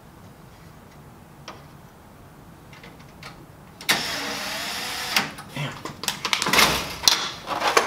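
Cordless electric screwdriver driving a screw, a steady whine for about a second starting about four seconds in. It is followed by a run of irregular clicks and knocks as parts inside the paper feeder drawer are handled and pushed into place.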